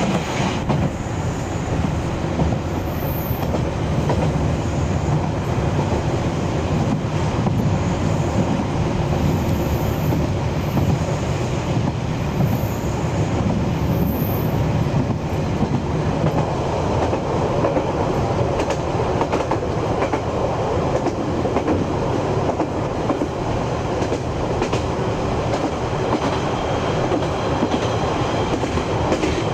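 Amagi Railway diesel railcar running along the line, heard from inside the car: a steady rumble of wheels on rail with occasional faint rail-joint clicks.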